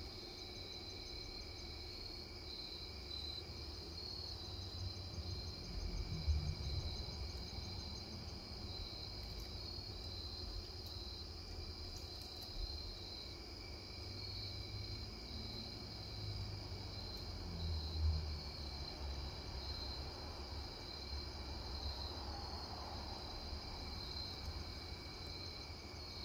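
Crickets trilling steadily in a high, even chorus. Low rumbles come and go underneath, loudest about six seconds in and again near eighteen seconds.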